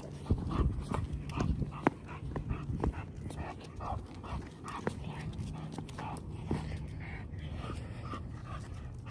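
A dog panting in short, quick, regular breaths, with scattered knocks and rustling from a hand-held phone being carried on a walk.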